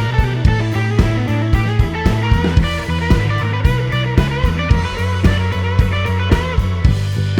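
Background music: a guitar-led rock track with a steady drum beat of about two strikes a second over a sustained bass line.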